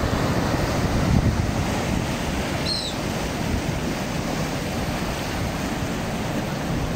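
Surf breaking and washing over shoreline rocks, with wind buffeting the microphone. A brief high, falling chirp sounds about three seconds in.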